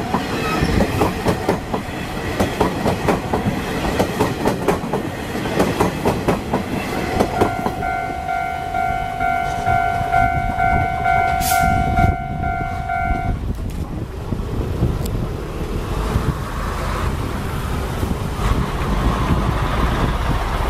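Taiwan Railways Chu-Kuang Express coaches running past, their wheels clicking rapidly over the rail joints, the clatter easing as the train draws away. Midway, a steady tone sounds for about six seconds.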